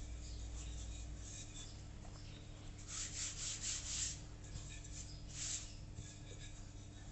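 A wooden rolling pin rolls and scuffs over floured dough on a countertop. About three seconds in, a hand makes several quick brushing strokes across the dough's surface, and it brushes once more a little later. A low, steady hum runs underneath.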